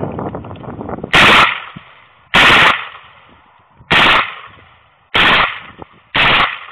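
Five single rifle shots from an HK 416, fired a second or so apart, each a sharp, very loud crack with a short ring-out.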